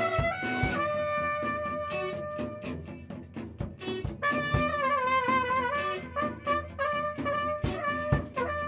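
Brass band music led by trumpets and trombones, playing held notes over a steady drum beat.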